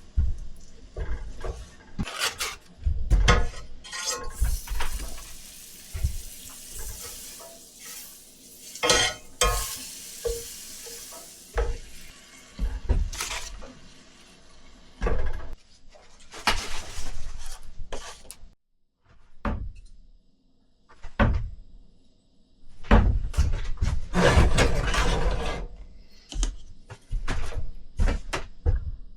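Irregular knocks and clatter of pots, pans and utensils, with a stretch of sizzling hiss from about five to eleven seconds in.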